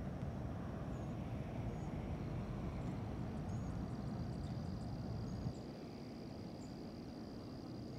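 Outdoor ambience: a low rumble that drops off abruptly about five and a half seconds in, with a steady high insect trill starting about halfway through and a few short, high bird chirps.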